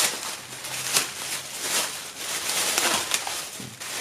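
Plastic packaging rustling and crinkling as it is handled, with a few sharper crackles.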